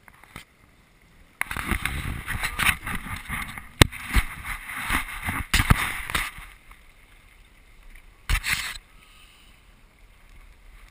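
Rushing, crackling noise of water and wind against the camera on a small sailboat under way, loudest for the first several seconds, with a sharp knock about four seconds in. A short burst of it comes later, then it settles to a quieter steady hiss.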